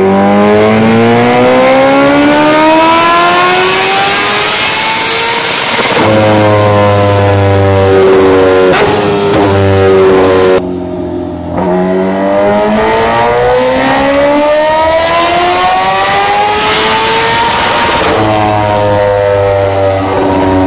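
Kawasaki Ninja H2R's supercharged inline-four running hard on a dyno: the revs climb in a long rising pull for about six seconds, then the pitch drops suddenly to a lower, steady note. Around the middle the throttle briefly closes, then a second long rising pull follows, dropping again near the end.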